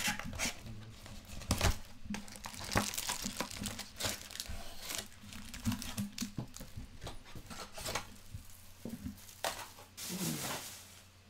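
A cardboard trading-card hobby box being opened by hand and its stack of foil card packs pulled out and set down: crinkling and rustling of wrapper and packs, with scattered light taps and clicks.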